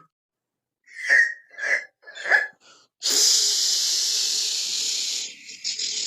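A person making mouth sound effects: three short, sharp vocal bursts, then a long, loud hiss lasting about two seconds that trails off near the end.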